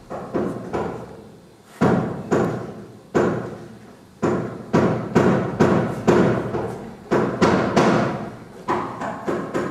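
Heavy thumps on a stage floor, ringing out briefly after each, spaced unevenly at first and then falling into a steady beat of about two to three a second.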